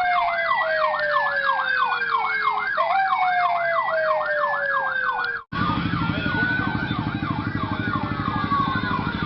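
Electronic police-escort siren: a fast yelp of about four pitch sweeps a second, layered with a slower tone that falls over nearly three seconds and restarts. About halfway through, the sound cuts out for an instant and returns as a different siren pattern of slow rising sweeps over a low buzz.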